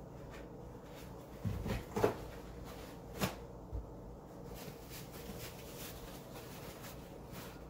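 A few short knocks and bumps, a couple about one and a half to two seconds in and a sharp click about three seconds in, over a faint steady hum in a small room.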